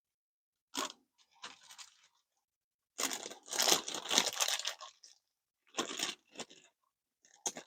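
Handling noise from 3D printer filament: a sharp click, short rustles, then about two seconds of scraping and rustling of plastic, a couple more brief scrapes, and another click near the end.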